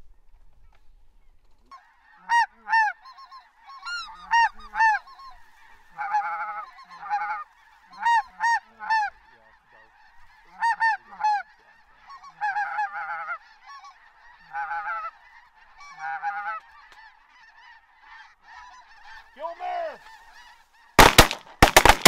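A flock of geese honking overhead: repeated two- and three-note honks over a steady din of distant calling, with a burst of much louder, rapid calls near the end.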